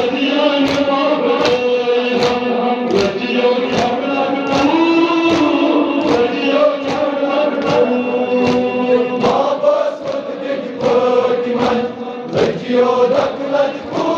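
Men's voices chanting a Kashmiri noha, a Shia mourning elegy, in unison, held on long sung notes. Sharp chest-beating slaps (matam) keep time about once every three-quarters of a second.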